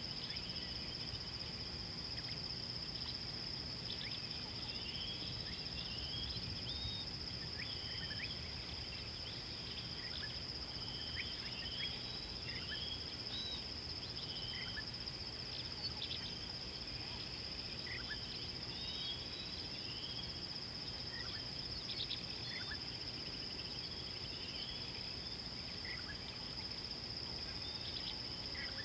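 Outdoor bush ambience: a steady, high insect drone throughout, with short bird chirps and whistles scattered over it.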